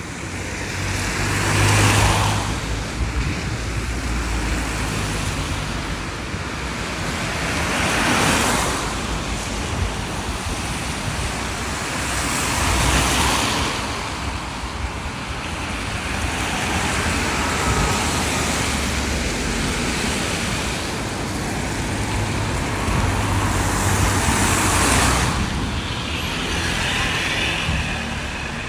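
Road traffic on a rain-wet street: vehicles passing one by one, their tyres hissing on the wet surface over a low engine rumble. About four passes swell up and fade away.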